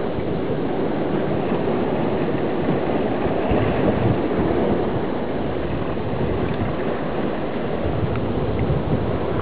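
Steady rush of ocean surf breaking on the rocky shore, with wind rumbling on the microphone.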